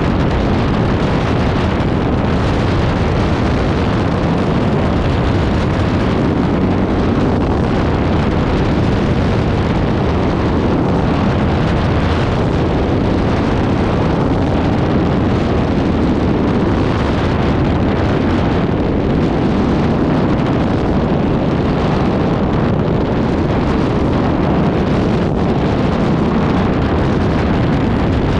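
Aerolite 103 ultralight in level flight: steady wind rushing through the open cockpit mixed with the drone of its engine, with heavy wind buffeting on the microphone.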